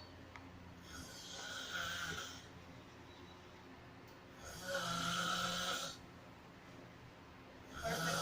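A sleeping person snoring, one drawn-out snore about every three and a half seconds. The middle snore is the loudest, and a third one starts near the end.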